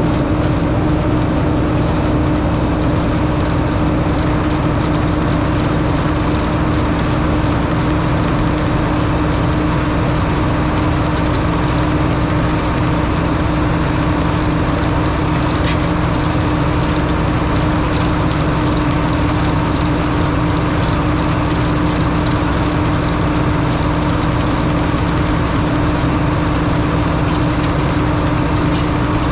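Tractor engine running steadily at constant speed, with a steady tone that does not change.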